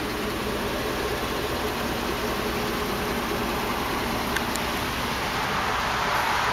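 2008 Chevrolet Tahoe LTZ's V8 idling steadily, heard from beside its muffler and exhaust tip.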